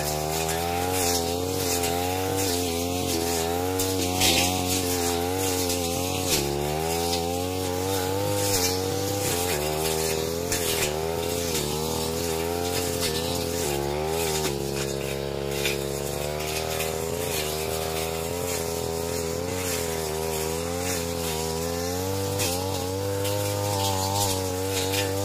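Backpack brush cutter's two-stroke engine running at high revs. Its pitch repeatedly dips and recovers as the blade cuts through dense grass and ferns, with crackle from the cut growth.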